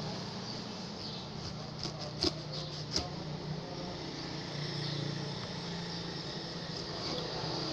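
Kitchen knife slicing the rind off a whole pineapple on a cutting board, with a few short sharp clicks about two and three seconds in, over a steady low hum.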